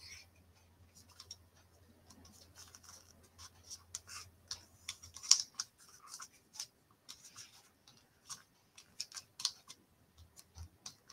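Fingers handling and pressing small paper die-cut pieces onto a cardstock card: faint, irregular scratchy rustles and light taps, with one sharper tap about five seconds in.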